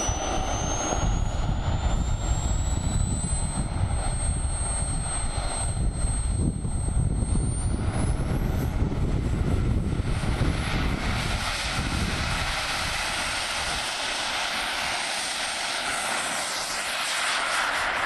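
Strong wind gusting on the microphone, heavy low buffeting through the first eleven seconds or so, with a thin high whine climbing slowly in pitch and sweeping up sharply near the eight-second mark. After that the buffeting eases and a steadier airy hiss takes over.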